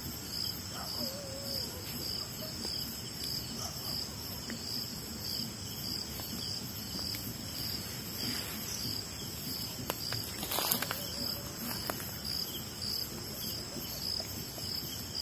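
Night crickets chirping steadily in a high, pulsing chorus, with a few faint clicks about ten seconds in.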